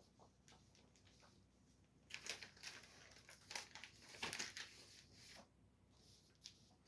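Comic books and their plastic bags being handled and shuffled: faint crinkling and rustling that starts about two seconds in and dies away near the end.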